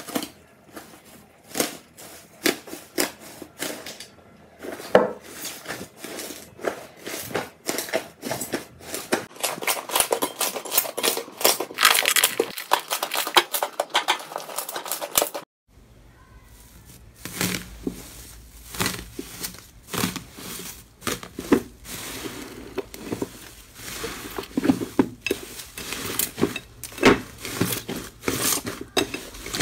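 Slime being squished and pressed, giving a dense run of sticky pops, clicks and crackles, with a brief silent break about halfway through.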